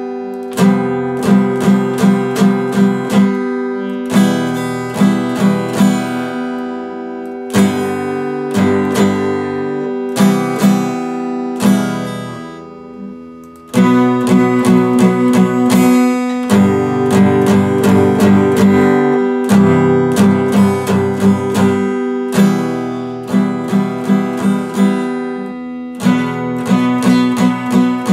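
Epiphone steel-string acoustic guitar strummed in a steady rhythm of chords. About halfway through, one chord is left to ring and die away before the strumming starts again loudly.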